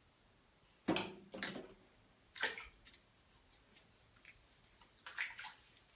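A few brief wet splashes and squelches as hands lather shampoo into a baby monkey's wet fur in a sink, about a second in, twice more over the next two seconds, and again near the end.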